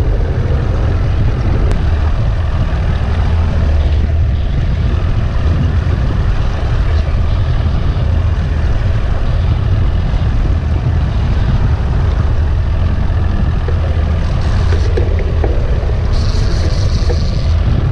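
Steady low drone of a fishing boat's engine running at trolling speed, mixed with wind and wave noise at sea.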